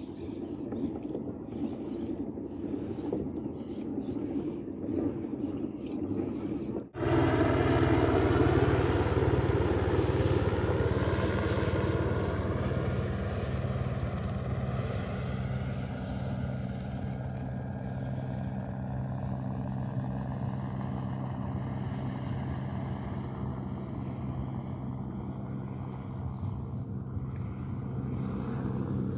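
Wind and water noise, then from about seven seconds in a motorboat engine running steadily, its pitch slowly falling as it passes by.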